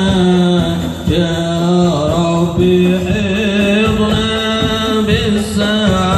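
Marawis ensemble: a group of male voices singing a devotional chant in chorus over busy hand-drum strokes, amplified through Yamaha DBR15 active PA speakers.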